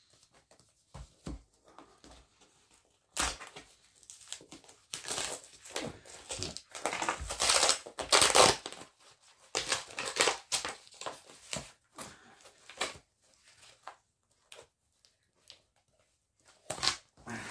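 Cardboard mailer box being opened by hand: irregular tearing and crumpling of card in bursts with short pauses, loudest about halfway through, with a brief burst again near the end.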